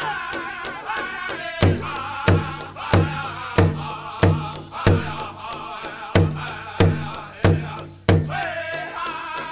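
Pow wow drum group singing over a fast, steady beat on a big drum. About one and a half seconds in, the drum switches to about ten loud, slower hard beats, roughly one every two-thirds of a second, then the singing and the quick beat resume near the end.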